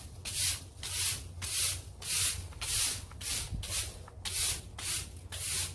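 Palm-frond garden broom sweeping in quick, even strokes, about two swishes a second.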